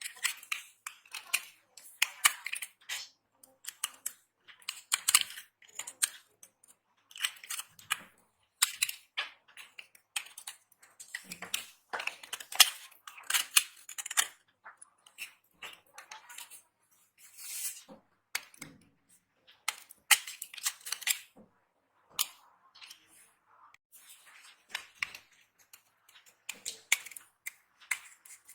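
Dry soap being cut and crushed: crisp crackling and crunching in short bursts, with brief pauses between them.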